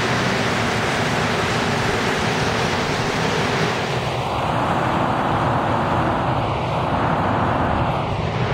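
Montreal Metro rubber-tyred train running out of the station past the platform, a loud steady rush of wheels and motors. About halfway through, the sound narrows to a mid-pitched hum as the train pulls away into the tunnel.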